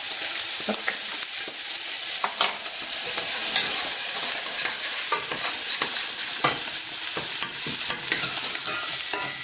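Diced onion and bacon frying in oil in stainless-steel saucepans, a steady sizzle, while the onion is stirred, with a few light clicks of the utensil against the pan.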